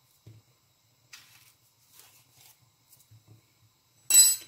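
Ripe plantain being peeled by hand: faint soft rustles of handling, then a short, louder rip of the peel about four seconds in.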